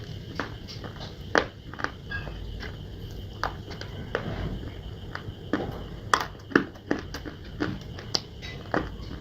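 Dry clay and slate being bitten and chewed, with irregular sharp crunches and cracks, the loudest cluster about six seconds in.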